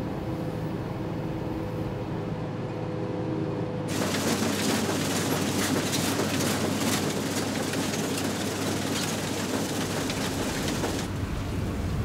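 Combine harvester running: a steady engine hum as heard from inside the cab, then about four seconds in a louder rattling clatter with crackling as the header reel and cutter bar work through dry soybean plants, easing back to a hum near the end.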